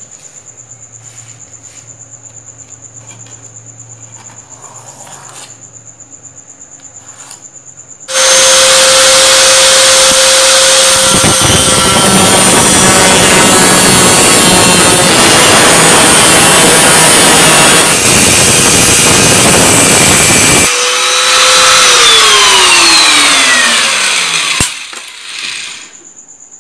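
Handheld angle grinder with a cut-off disc cutting through a thin steel plate. About eight seconds in it starts with a steady whine, then grinds through the metal loud and harsh for about ten seconds. It is then switched off and its whine falls as the disc spins down. Before the grinder starts there is only a faint steady high tone.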